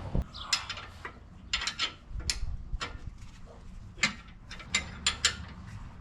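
Irregular sharp clicks and clacks of hand tools and hard parts being handled at the van's wheel, about a dozen knocks spaced unevenly.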